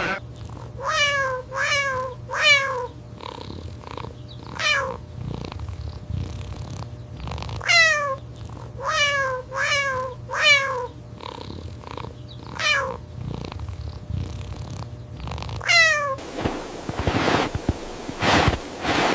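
An animal's short, high calls, each sliding down in pitch, about a dozen of them, often in quick runs of two or three, over a steady low hum. Near the end the calls stop and a crackling rustle takes over.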